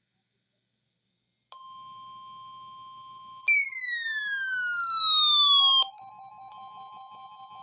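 NOAA Weather Radio warning alarm tone: a steady high tone that starts about a second and a half in. Midway through, a louder alert tone sweeps downward in pitch for about two seconds and cuts off, after which a pulsing lower tone sounds alongside the steady one.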